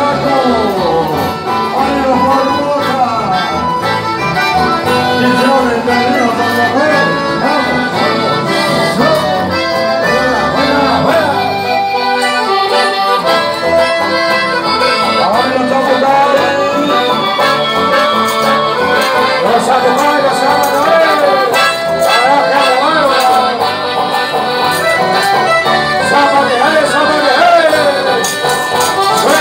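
Live accordion-led Latin American folk band playing dance music. The bass drops out for about a second around twelve seconds in.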